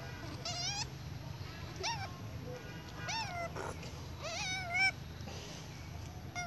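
Baby monkey crying: a string of short, high-pitched squealing cries, each rising and then falling in pitch, repeated over and over.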